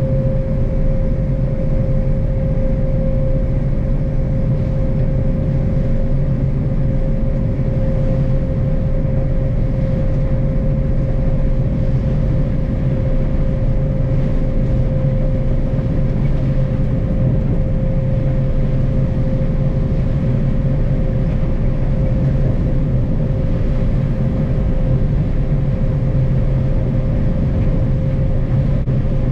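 John Deere combine harvester running steadily: a low drone with a constant whine above it.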